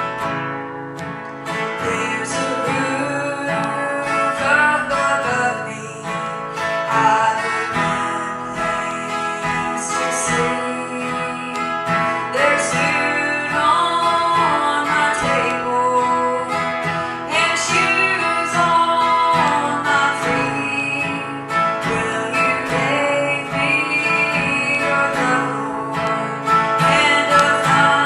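Music: a strummed acoustic guitar with a voice singing over it.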